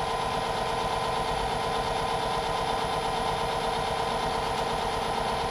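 Myford ML7 metal lathe running steadily under power, a constant hum with a steady whine.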